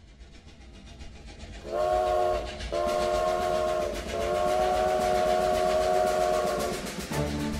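Steam train whistle sounding three times, two short blasts and one long, over a rumbling train that swells up from quiet. Music with a beat starts just before the end.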